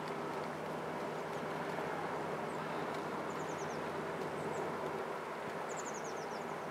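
Steady hum and rumble of a passing container ship's engines and machinery. A small bird chirps in short, high, descending runs of notes several times over it.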